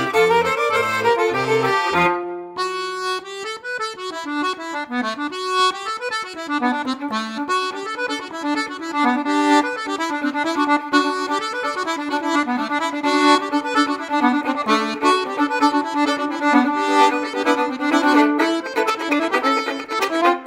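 Instrumental folk music: an accordion playing a tune. Low bass notes stop with a short break about two seconds in.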